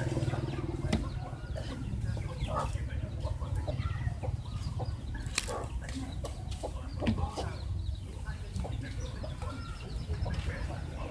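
Chickens clucking now and then, with a few sharp clicks over a steady low rumble.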